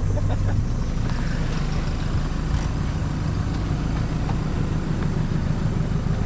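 Four-wheel-drive vehicle driving, its engine running steadily with a low rumble and occasional faint knocks and rattles.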